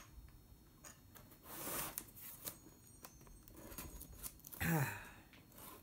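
Cardboard shipping box being handled and shifted on a table: rustling and scraping of cardboard with a few light knocks, loudest about two seconds in. A short hum from a woman, falling in pitch, comes near the end.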